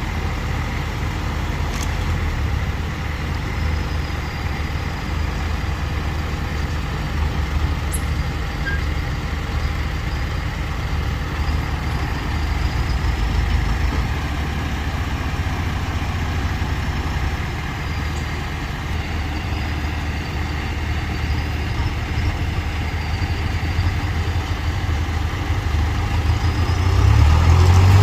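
Diesel engine of earthmoving machinery running steadily under a low drone, with a faint wavering high whine, then revving up near the end.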